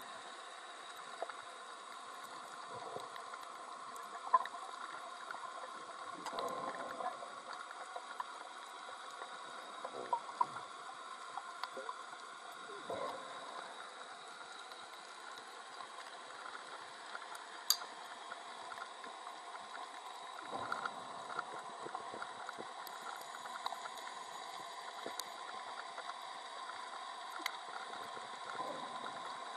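Underwater ambience picked up through a camera housing: a steady low hiss, with scattered soft gurgles and a few sharp clicks.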